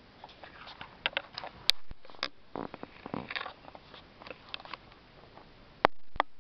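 Soft rustling against fabric with a few sharp clicks close to the microphone, the loudest about two seconds in and twice near the end.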